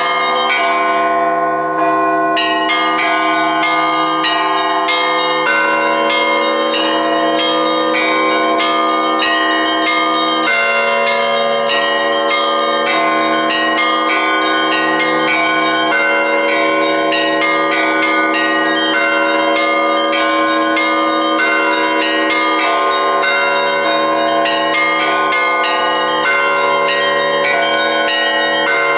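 Russian Orthodox church bells being rung (kolokolny zvon): rapid, dense strikes of the smaller bells over the sustained ringing of larger bells, going on without a break.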